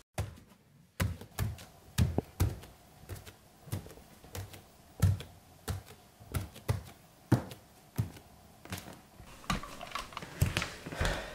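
Footsteps of bare feet climbing wooden stairs: a string of soft thuds, about two to three a second, starting about a second in.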